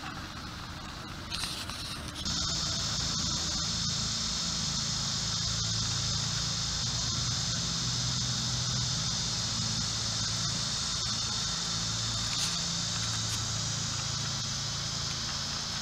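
A steady high-pitched insect drone that starts abruptly about two seconds in and holds, over a steady low hum.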